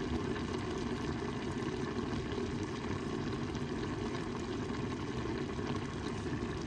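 Chicken stew simmering under a glass lid: a steady bubbling hiss of the pan on the heat.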